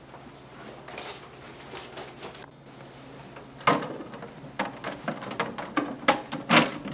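A vinyl record being handled and set onto a retro tabletop record player: light rustling, then a sharp knock a little past the middle, followed by a run of small clicks and taps as the disc is laid on the platter.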